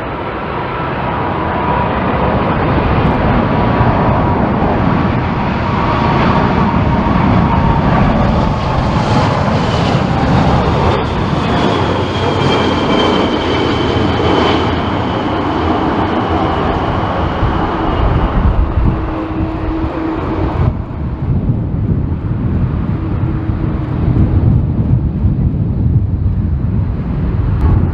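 Boeing 747 jet engines roaring as the jumbo flies low past, with a thin whine that slowly falls in pitch. The higher part of the roar drops away suddenly about 21 seconds in, leaving a low rumble.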